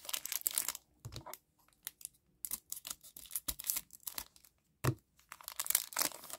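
Foil wrapper of a trading-card pack crinkling in bursts as it is handled and cut open with scissors, with a few sharp clicks between.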